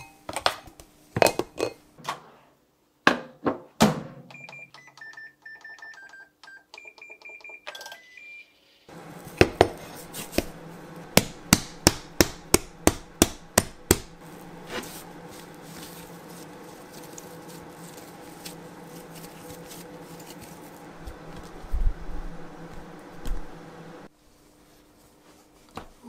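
Bread dough being knocked and thumped against a glass bowl and a wooden pastry board, then a string of short beeps from a Hitachi MRO-S1KS microwave oven's keypad. After that the oven runs with a steady hum while a quick run of about fifteen slaps and, later, a few heavy thumps land on the board.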